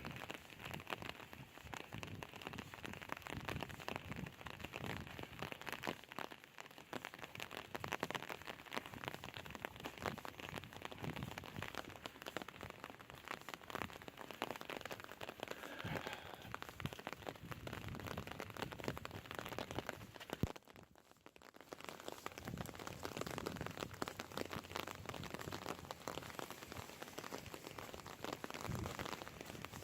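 Steady rain pattering close to the microphone, a dense patter of fine drop ticks; it drops away for about a second roughly two-thirds of the way through.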